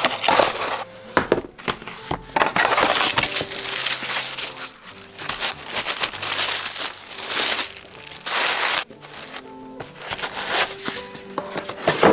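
Pink tissue paper rustling and crinkling in repeated bursts as it is folded around items in a cardboard box, over background music with soft sustained notes. A box lid knocks shut near the end.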